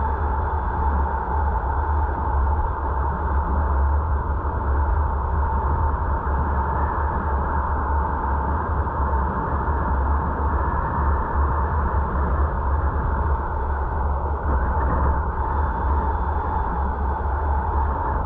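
A car driving at steady speed: unbroken road and wind noise with a heavy low rumble, picked up by a dashcam microphone.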